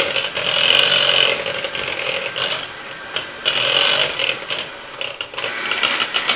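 Electric hand mixer running with its whisk beaters in ricotta cream in a plastic bowl: a steady motor hum, with the noise of the beaters against the bowl swelling and dipping as they are moved around.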